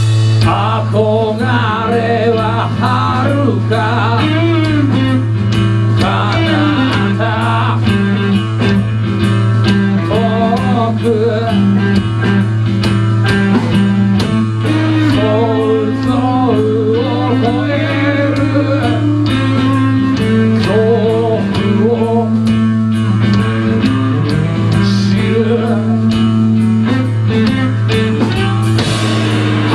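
Live band music: acoustic guitar and electric guitar over drums, with a wavering melody line above a steady low drone.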